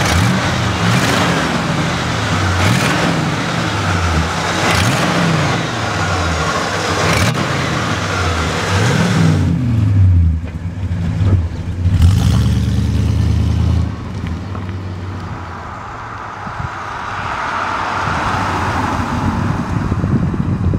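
A 1967 Oldsmobile 442's 400 V8 with dual exhaust, running just after start-up. It is revved up and let back down about four times, held at higher revs for a few seconds, and then the car is heard driving off and going by.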